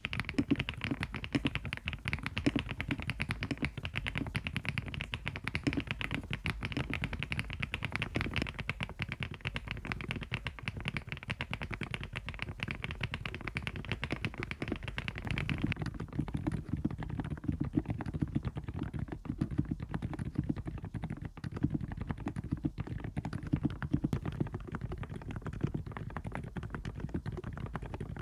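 Fast continuous typing on an Aula F108 mechanical keyboard, a dense run of key clacks. About halfway through the sound changes: the clacks lose their bright top and turn deeper and duller.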